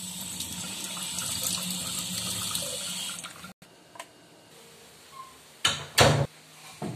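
Kitchen sink faucet running, water splashing as it pours into a mouth, for about three seconds before it stops. Near the end come two loud thuds, close together.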